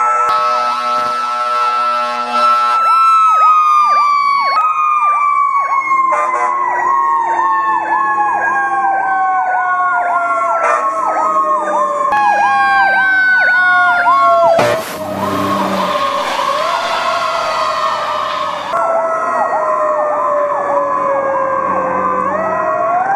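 Fire truck sirens: a Federal Q2B mechanical siren holds a high note, then winds down slowly and is spun back up several times, under an electronic siren's fast yelp. A brief rush of noise comes about two-thirds of the way through as the truck passes close.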